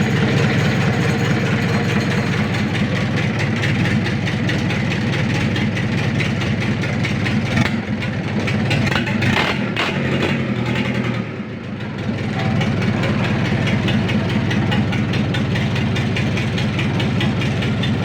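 A ship's engine running steadily on test, with a fast, even firing beat and a heavy low hum. The sound dips briefly about eleven seconds in, then picks up again.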